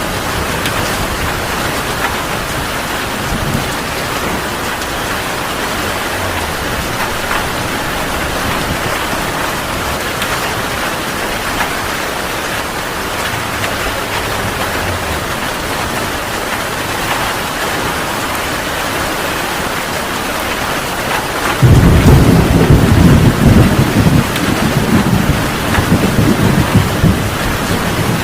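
Heavy rain falling steadily. Near the end a loud, deep rumble of thunder starts suddenly and rolls on.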